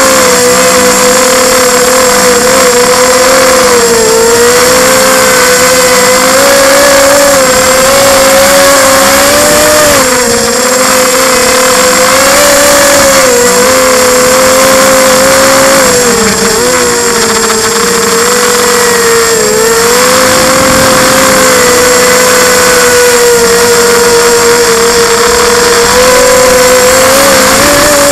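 Quadcopter's electric motors and propellers humming loudly and continuously, heard close up from a camera on the airframe. The pitch keeps wavering up and down as the throttle changes in flight.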